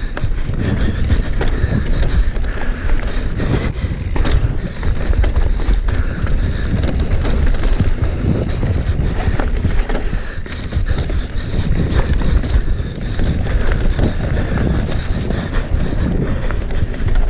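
Mountain bike ridden fast down a rough, rooty trail: wind rushing over the camera microphone and tyres rumbling over dirt and roots, with many short clattering knocks as the bike is shaken.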